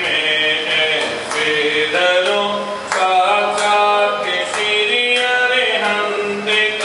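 Male voices chanting a devotional Jain abhishek hymn to a sung melody, continuous throughout.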